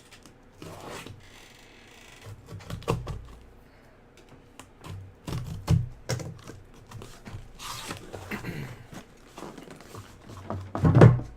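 Scattered handling sounds on a tabletop: light knocks, taps and rustling of packaging and card boxes, with a louder cluster near the end.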